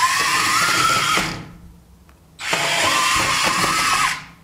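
The six CADA micro motors of a remote-controlled LEGO Technic 6x6 rover whining as it drives, in two runs of about a second and a half each with a pause between. The whine rises in pitch as each run starts.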